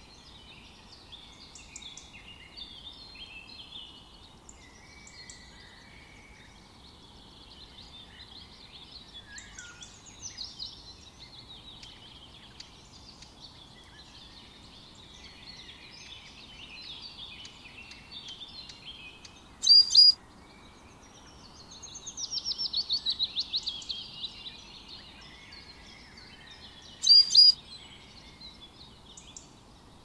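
Several birds calling and twittering over a steady background hiss. A rapid trill lasts about two seconds in the second half, framed by two loud, short, sharp calls about seven seconds apart.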